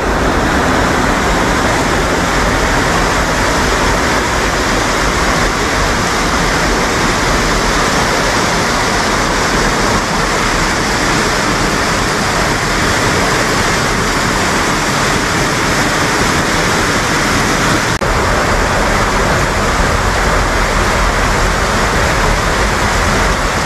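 Waterfall on a mountain stream: a loud, steady rush of falling water.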